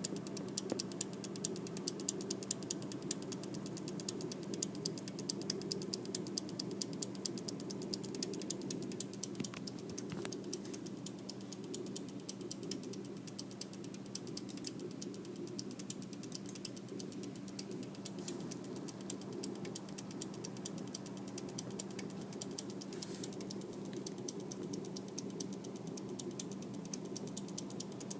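Seasonic computer power supply making an odd noise: a rapid, even ticking or rattling over a steady hum.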